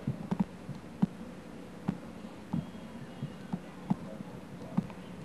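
Plastic action figures tapped and shuffled by hand across a pool-table top, making irregular soft knocks about two a second over a steady low electrical hum.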